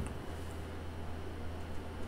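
Steady low electrical hum, with a faint soft click or two as a sandwich is handled close to the microphone.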